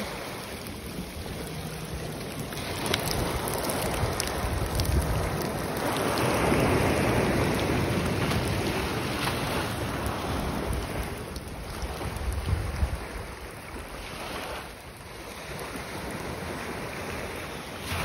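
Shallow surf washing up over wet sand and draining back. It swells to its loudest a few seconds in and eases off near the end. Wind rumbles on the microphone throughout.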